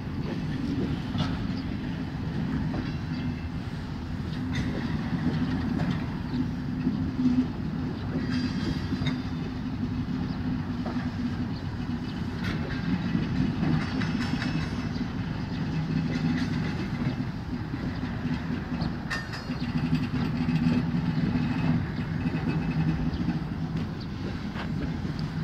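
Freight wagons of a container train rolling past at a steady pace: a continuous low rumble of wheels on rail, with scattered clicks and clacks from the wheels.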